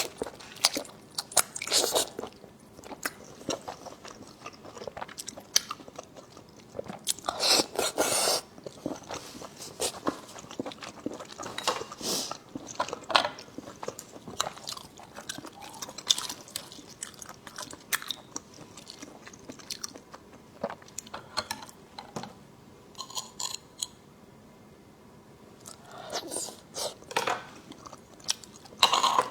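Close-miked eating: a person biting and chewing food, with many short clicky mouth sounds, louder clusters about eight seconds in and again near the end, and a brief lull a little past twenty seconds.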